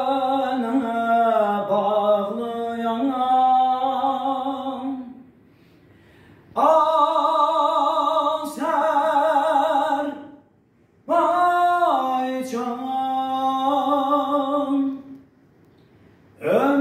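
A man singing unaccompanied in long, drawn-out phrases with a wavering voice: three held phrases, each followed by a short pause, and a fourth beginning near the end.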